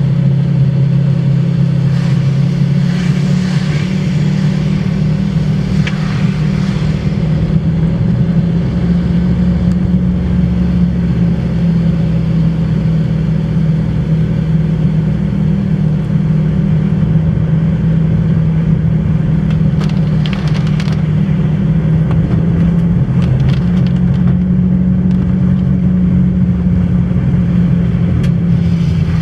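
Steady low drone of a car's engine and tyres heard from inside the cabin while driving in rain, with a few faint brief ticks here and there.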